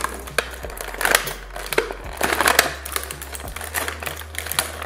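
Clear plastic zip pouch and plastic packaging crinkling and rustling, with small plastic clicks and knocks, as a Play-Doh tool set is pulled out of the pouch.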